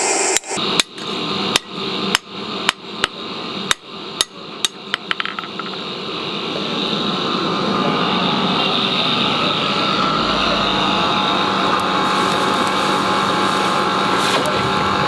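Hand hammer striking a hoe blade on an anvil: about a dozen ringing blows, one or two a second, quickening into a run of quick light taps about five seconds in. After that, a steady whirring noise continues.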